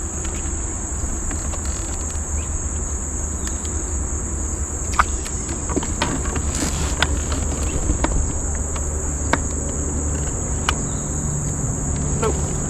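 Chorus of insects, crickets or similar, keeping up a steady high-pitched buzz, with a few scattered light clicks and taps over it.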